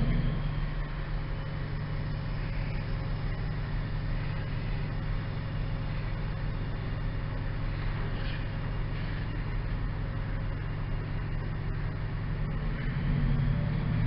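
Class 68 diesel-electric locomotive running steadily with a deep, even engine drone, growing a little louder near the end.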